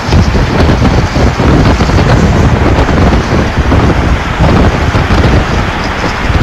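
Storm wind blasting against a phone microphone: a loud, unsteady rush with heavy low buffeting that cuts in abruptly at the start.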